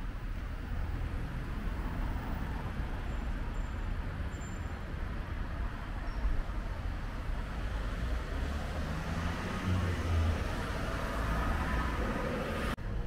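Road traffic: a steady low rumble of cars on the street, swelling in the second half as a vehicle passes close. There is a momentary dropout near the end.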